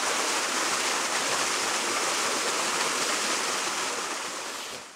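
Small waterfall pouring down a rock face: a steady rush of falling water that fades out near the end.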